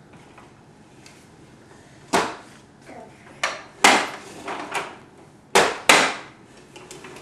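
Plastic push-along baby walker knocking and clattering against a hardwood floor as it is pushed: about half a dozen sharp knocks at uneven intervals, the loudest two close together near the end.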